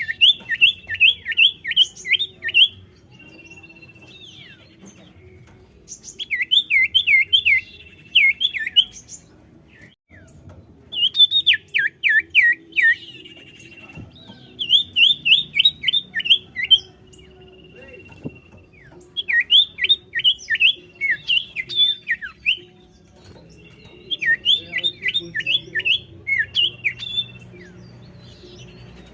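Common iora (cipoh) singing in repeated phrases: quick runs of sharp, downward-slurred notes, about three or four a second, each run lasting two to three seconds. A short steady whistle sits between the runs.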